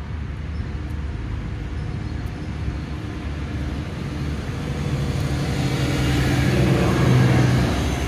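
Road traffic rumbling, with a motor vehicle's engine hum growing louder over the second half and falling away near the end as it drives past.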